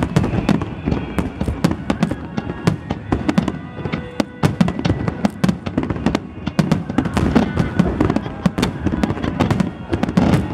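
Dense barrage of aerial firework shells bursting overhead, many sharp bangs a second overlapping without a break, as in a finale. Music plays underneath.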